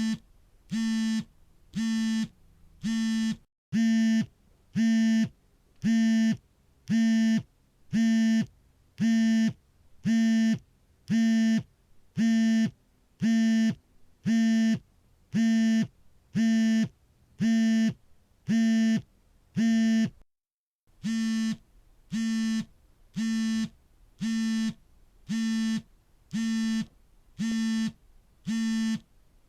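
Smartphone vibrating for an incoming call: a short, evenly repeated buzz, about three pulses every two seconds. The pattern breaks off briefly twice.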